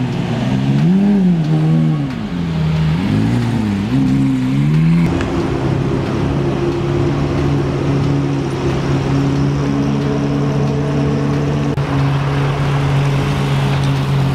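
Car engine revved in a series of quick blips, each note rising and falling, over the first five seconds or so. It then settles into a steady engine note held at one pitch.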